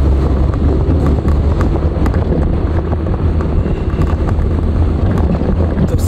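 Nissan Skyline DR30 RS Turbo's turbocharged four-cylinder engine running under way, a steady low drone with road noise and wind buffeting the microphone.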